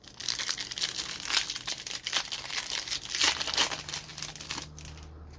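Foil trading-card pack wrapper crinkling as it is torn open and pulled apart, dense and crackly for about four and a half seconds. A faint low hum comes in near the end.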